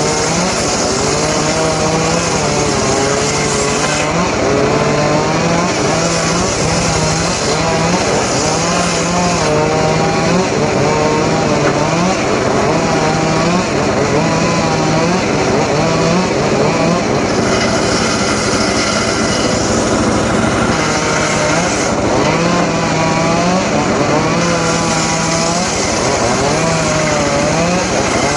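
Engine-driven saw running steadily at high speed, with several stretches of a higher hiss lasting a few seconds each as the blade cuts into wood.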